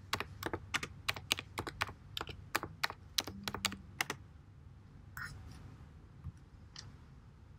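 Typing on a computer keyboard: a quick, irregular run of key clicks that stops about four seconds in.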